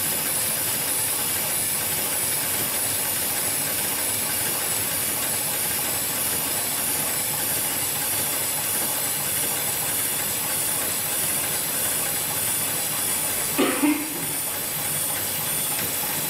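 HIGHTEX 71008 heavy-duty programmable sewing machine running steadily as it stitches its pre-programmed pattern through kernmantle rope: an even mechanical whir with a lot of hiss. A short, louder burst stands out near the end.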